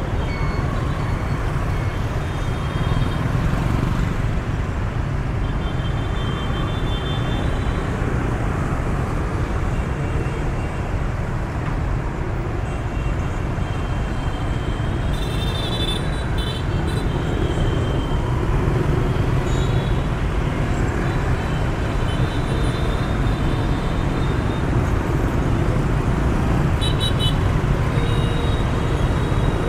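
Dense rush-hour traffic of motor scooters and motorbikes passing through an intersection: a steady rumble of small engines and tyres that grows a little louder in the second half, with short horn beeps a few times.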